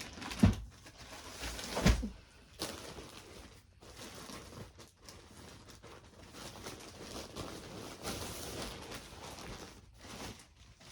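Rustling and handling noise of clothes and packaging being moved about, with two thumps about half a second and two seconds in.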